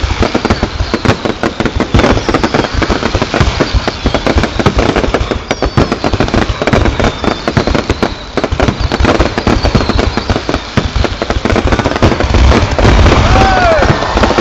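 Fireworks display: a loud, dense barrage of bangs and crackles following one another several times a second, without a break.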